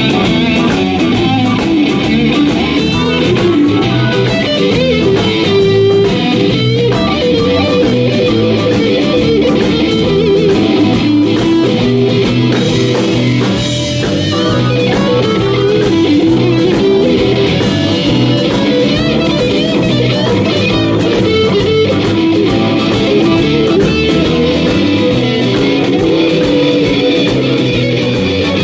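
Live rock band playing an instrumental passage, an electric guitar leading over bass guitar.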